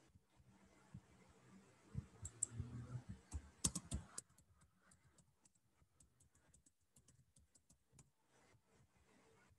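Faint typing on a computer keyboard: a run of light, irregular key clicks, with a few louder knocks around two to four seconds in.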